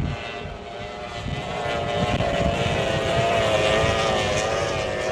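Unlimited-class outboard race boat engines running flat out, a steady engine tone with a slightly wavering pitch that grows louder about two seconds in.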